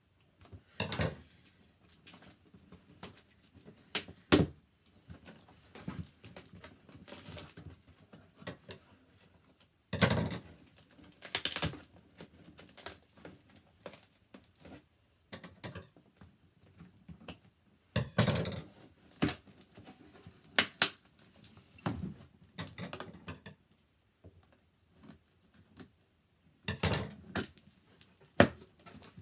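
A cardboard shipping box being worked open by hand, with irregular scraping, tapping and ripping of cardboard and packing tape. A few of the ripping noises are longer and louder.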